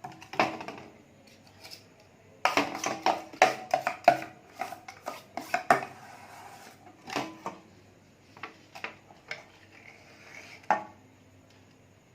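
A metal spoon clinking and knocking against a glass or bowl in irregular strokes, busiest a few seconds in, then sparser.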